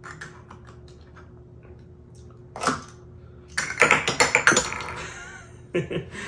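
Hollow plastic toy ice cream scoops clattering onto a tabletop as a stacked tower topples: a dense run of quick clicks and knocks about three and a half seconds in. It follows a single sharper click a second before and a few faint taps of the plastic scooper at the start.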